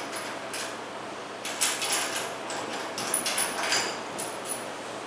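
Light metallic clicks and clinks of a washer and nut being handled and changed on a steel flange test fixture, a quick cluster of them from about a second and a half in to about four seconds in.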